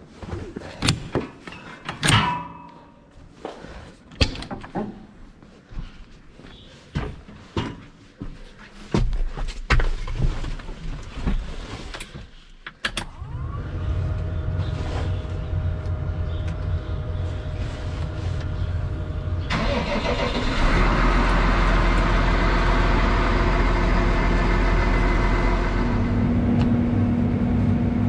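Clunks and knocks of someone climbing into a New Holland loader tractor's cab, then the tractor's diesel engine is cranked and starts about thirteen seconds in, a cold-weather start after being plugged in on the block heater. It settles into a steady idle, and about twenty seconds in a louder, even rushing noise joins it.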